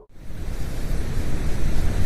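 Dense rushing roar like wind or surf, fading in just after a sudden cut and swelling louder, heaviest in the low rumble: a 'planet sound' made from spacecraft recordings of space.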